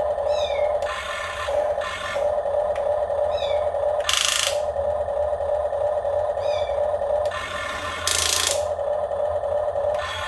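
Radio-controlled excavator's small electric motor and pump whining steadily. Three bursts of scraping, rasping noise break in, and short high squeaks come every few seconds, typical of the model's arm and tracks working against wooden blocks.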